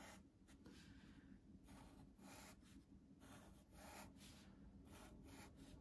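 Faint scratching of a Sharpie fine-point permanent marker drawing a series of short strokes on thick paper, over a low room hum.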